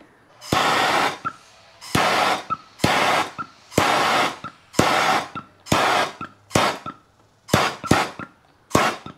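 MAP gas torch fired in short bursts, about ten times at roughly one a second: each starts with a sharp click of the igniter and hisses briefly before it is shut off, heating heat-shrink tubing on a battery cable.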